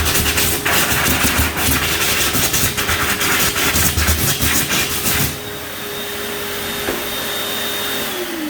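Electric hand dryer running: a loud rush of air over a steady motor whine, rough and fluttering for about five seconds, then quieter and steadier. Near the end it cuts out and the motor winds down with a falling whine.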